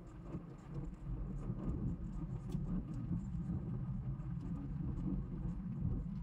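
Steady low rumble of a car being driven in city traffic, heard from inside the car: engine and road noise, with a few faint light ticks.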